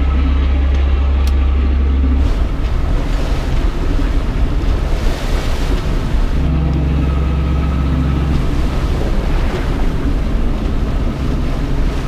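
Sailboat's inboard engine running with a steady low drone that swells louder twice, over a constant wash of wind and water noise.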